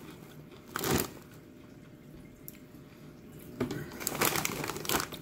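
Crinkly plastic snack bag being handled: one short rustle about a second in, then a run of crackling rustles near the end.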